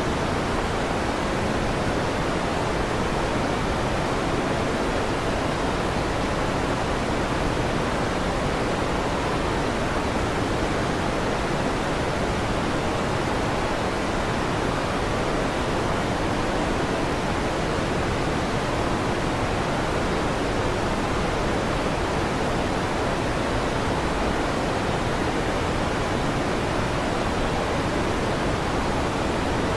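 Electric fan noise: a steady, even rushing hiss with no rises, breaks or thunderclaps.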